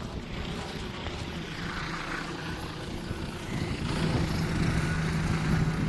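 Helicopter flying, a steady low rotor and engine rumble that grows louder about four seconds in, when a steady low hum comes in.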